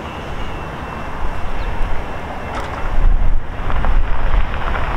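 Wind buffeting the microphone over the low rumble of an approaching VIA Rail diesel passenger train led by a GE P42DC locomotive; the buffeting and rumble get louder about three seconds in.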